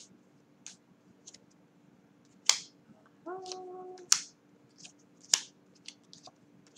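Tarot cards being shuffled by hand: scattered sharp card snaps and taps, the loudest about two and a half, four and five and a half seconds in.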